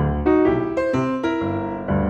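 Background piano music, single notes and chords struck one after another every few tenths of a second.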